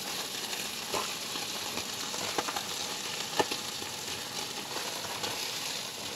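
Crappie fillets frying in a cast-iron skillet, a steady sizzle. A metal slotted spatula knocks against the pan three times as the fillets are turned, about one, two and a half and three and a half seconds in, the last the loudest.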